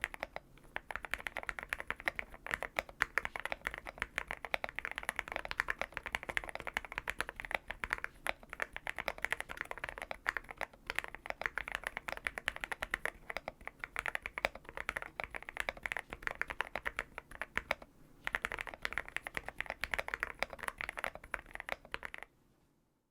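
Xinmeng M71 mechanical keyboard with lubed and filmed Gateron Milky Yellow Pro linear switches, tape mod, force break mod and PBT XDA keycaps, typed on quickly and continuously. The typing pauses briefly near the end and then stops shortly before the end.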